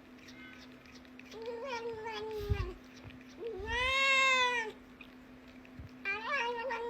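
A cat meowing three times, long drawn-out meows, the middle one the loudest, rising then falling in pitch; the last begins near the end. A steady low hum runs underneath.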